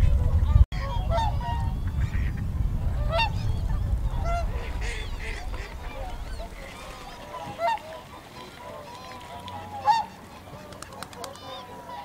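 A large flock of swans and geese calling, with many overlapping honks throughout and a few louder calls in the second half. Wind rumbles on the microphone for the first half, then drops away.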